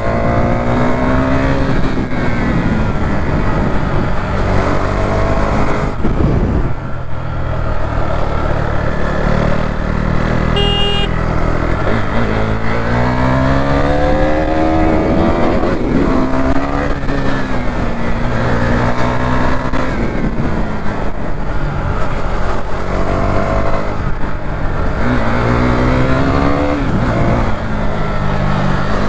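KTM single-cylinder motorcycle engine under hard riding, its pitch climbing again and again and falling back at each gear change or throttle lift. A short high beep sounds about eleven seconds in.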